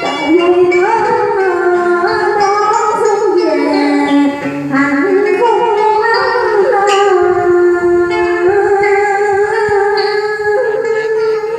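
Đờn ca tài tử, traditional southern Vietnamese music: an instrumental passage with a melody that slides and bends in pitch, over plucked strings.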